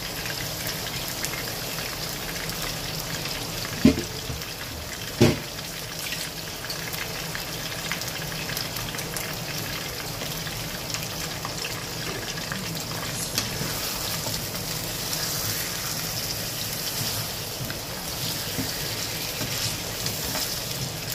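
Raw mutton pieces sizzling steadily in hot oil in a wok as they are seared, the first browning stage of a karahi. Two sharp knocks a little over a second apart come about four seconds in.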